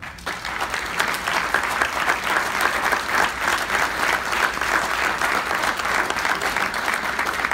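A roomful of people applauding. The clapping breaks out all at once and carries on steadily.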